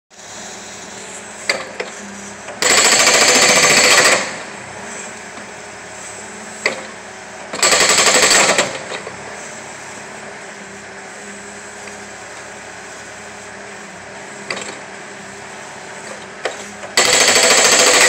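Machine-mounted hydraulic breaker hammering into a log round to split it, in three bursts of rapid blows: one of about a second and a half, one of about a second, and one starting near the end. Between the bursts the machine's engine runs steadily, with a few single knocks.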